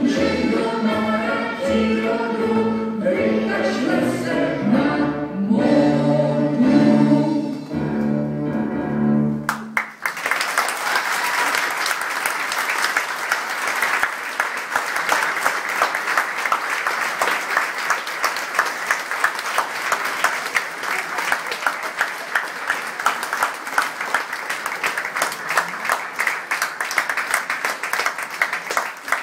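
A song with singing plays for the dance and cuts off abruptly about ten seconds in; an audience then applauds steadily for the rest of the time.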